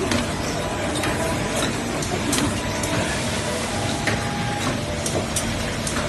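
ZK-660D automatic puzzle box making machine running: a steady mechanical noise with frequent, irregular sharp clicks and clacks from its moving parts.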